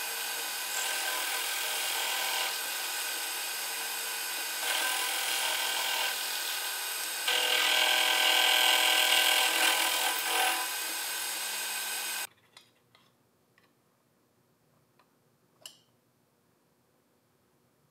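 An electric woodworking power tool running steadily with a constant motor whine, getting louder in stretches as it works the wood, most strongly from about seven to ten seconds in. It cuts off abruptly about twelve seconds in, followed by a few faint clicks.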